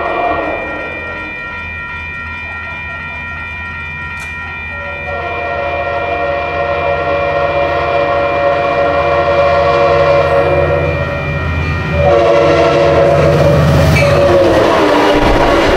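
Diesel passenger train approaching and passing at speed, sounding its chime air horn: a short blast at the start, a long blast from about five to eleven seconds in, and another long blast as the locomotive goes by near the end. The locomotive's rumble builds as it nears, under the steady ringing of the grade-crossing bell.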